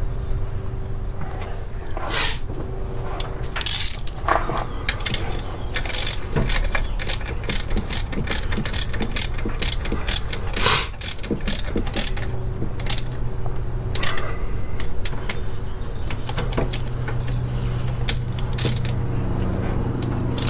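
Ratchet wrench with a long socket extension clicking in irregular runs, along with light knocks of metal tools, as a bolt at the alternator is turned. A steady low hum runs underneath.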